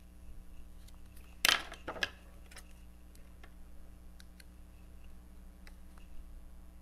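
Two sharp knocks about a second and a half in, half a second apart, as hand craft tools are set down on and picked up from the work table, followed by scattered light ticks of small tool handling.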